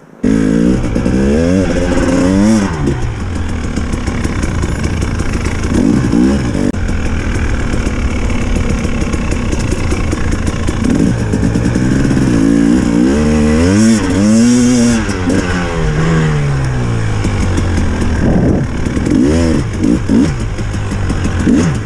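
Off-road motorcycle engine revving, its pitch climbing and falling again several times as the throttle is opened and closed, the biggest rise and fall a little past halfway, over a constant low rumble.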